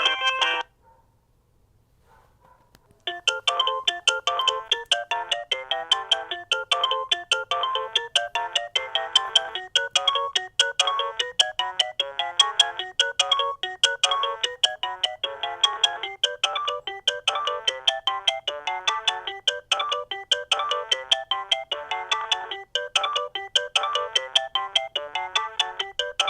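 Alcatel OT-E159a mobile phone playing its built-in polyphonic ringtones. One tune cuts off just under a second in, and after about two seconds of near silence a fast, busy melody with several notes at once starts and keeps going.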